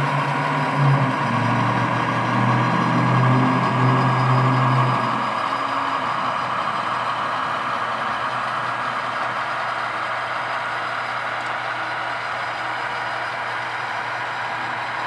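Diesel engine sounds from the on-board sound decoders of three HO scale GP-series yard locomotives (a GP39-2, a GP38-2 and a GP15-1) running together as the consist pulls out. The engines run louder and deeper for the first five seconds or so, then settle to a steady, quieter run.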